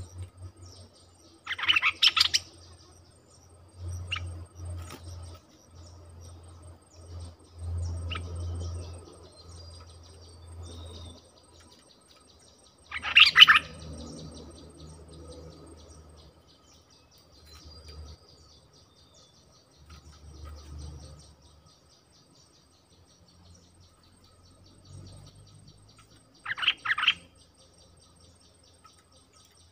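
Stripe-throated bulbuls calling: three short bursts of quick notes, about ten seconds apart, over a faint steady insect drone.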